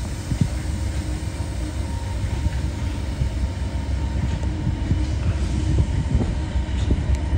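Diesel passenger locomotives idling at the head of a standing train: a steady low rumble with a faint hum over it and a few light knocks.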